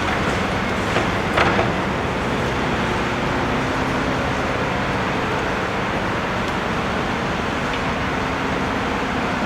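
Steady engine and traffic noise with a low engine drone, and two short knocks about a second in.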